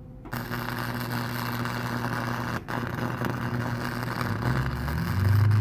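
MIG welder arc crackling and sizzling steadily as a washer is welded onto a steel bracket, with a brief break in the arc about halfway through. A low hum runs underneath and grows louder near the end.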